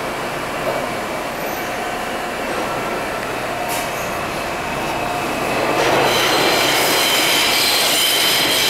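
New York City subway train running through the station tunnel with a steady rumble of wheels on rails. About six seconds in it grows louder, and a high metallic squeal of steel wheels on the rails joins it.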